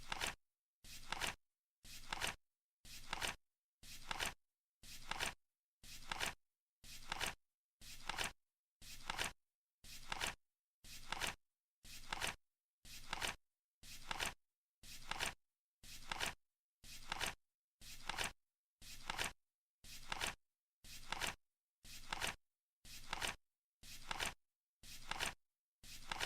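Flip-clock sound effect: the flap flipping once every second, each flip a short flick that fades quickly, with silence between.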